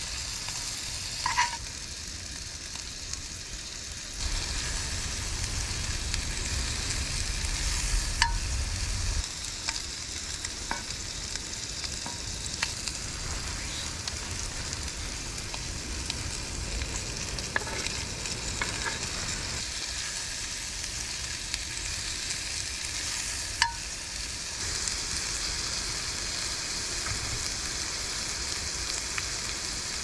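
Shrimp and vegetables sizzling steadily as they fry in a cast-iron skillet, with a metal spatula clinking and scraping against the pan now and then as they are stirred.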